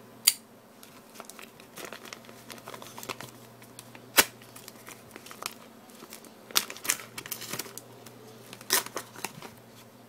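A paper mailing envelope in a plastic customs sleeve being handled and torn open: crinkling and rustling throughout, broken by several sharp clicks and snaps, the loudest about four seconds in.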